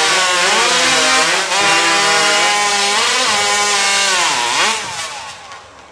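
Two two-stroke chainsaws, one a Stihl, just started from cold and running at full throttle as they cut into squared timbers; the engine pitch sags as the chains bite and climbs again several times. Both die down near the end.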